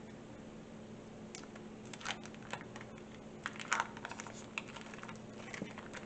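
Irregular light clicks and taps of a utensil against a skillet as the food is stirred and tossed, over a faint steady hum.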